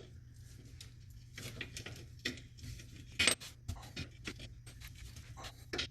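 Irregular metallic clicks and clinks of a steel bolt and hardware knocking against a Jeep's rear shock mount as the lower shock bolt is worked into place, with one louder clink about three seconds in.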